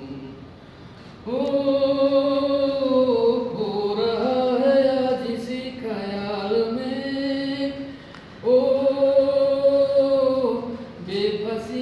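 A man singing unaccompanied, holding long, slow notes in two phrases, with a short break about eight seconds in and a new phrase starting near the end.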